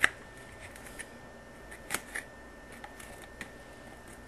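Light metal clicks and scrapes of a thin metal tool working inside the nut on an old copper supply line as it is cleaned out for reuse. There is a sharp click right at the start, two more about two seconds in, and a few softer ticks between.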